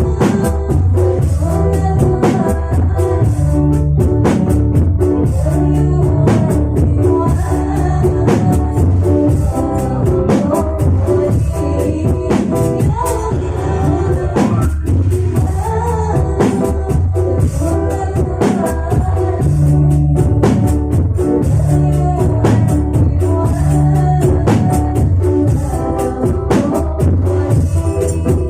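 Rebana group music: a song sung over a dense rhythm of rebana frame drums, with steady low notes beneath.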